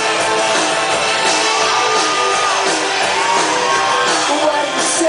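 Live rock band playing: electric guitar and drum kit with a steady kick-drum beat under held, gliding melody notes.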